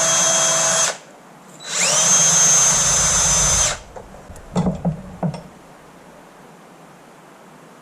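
A small high-speed power tool run in two bursts of about two seconds, its whine spinning up in pitch at the start of the second, used to clean up an old brass fuel-pump fitting; a few light knocks follow about halfway through.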